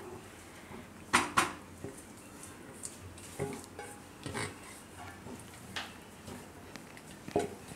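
A stainless steel bowl being scraped out with a silicone spatula over a kadai, with scattered clinks and knocks of the bowl and spatula against metal; two sharp clinks about a second in are the loudest.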